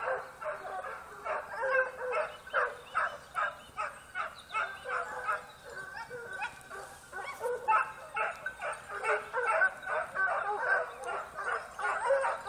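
A pack of Porcelaine hounds and a beagle baying together on a wild boar trail: a rapid, overlapping chorus of barks several a second, with a short lull midway.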